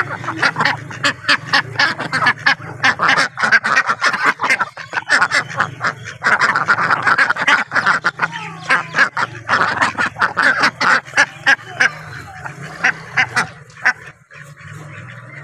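A flock of domestic ducks quacking loudly and rapidly, many calls overlapping in a dense chorus that thins out over the last few seconds.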